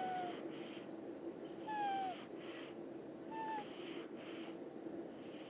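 Snoring with a thin whistle that slides down in pitch on each breath, three times about one and a half to two seconds apart, with a breathy hiss between the whistles.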